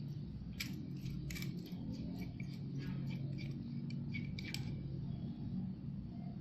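Small metal parts and tools clinking and tapping several times over a steady low hum, then the clinks stop and only the hum remains for the last couple of seconds.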